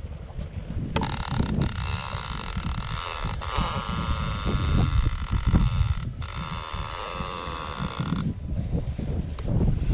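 A large conventional fishing reel's drag buzzing as a hooked white sturgeon pulls line off it on a run. The buzz starts about a second in and lasts some seven seconds, with three brief breaks.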